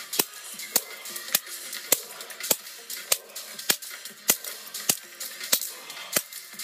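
Sharp smacks of a whip striking a bare foot sole, evenly paced at a little under two strikes a second, about eleven in a row.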